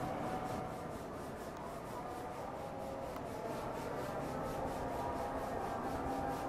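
Distant KAI KT-1 Woongbi turboprop trainer in flight heard from the ground: a steady rushing drone with a faint whine running through it and a fast, even pulsing in the hiss.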